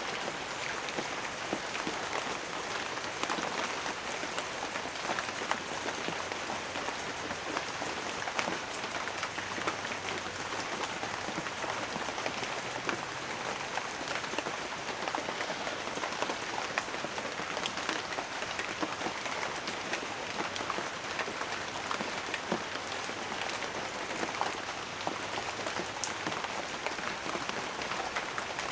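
Steady rain falling, a dense hiss of drops with many small distinct drop ticks on a surface.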